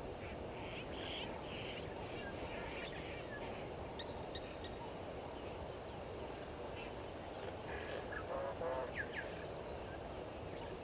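Wild birds calling in short repeated calls over a steady background hiss, with a louder run of calls about eight to nine seconds in.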